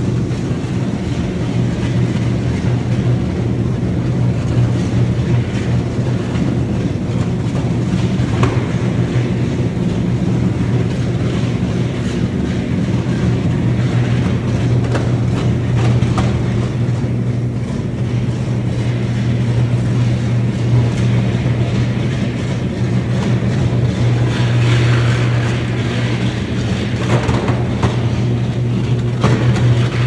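Three-phase electric arc furnace from the 1970s melting scrap steel. The arcs give a loud, steady, deep electrical buzz with irregular crackling and cracks all through.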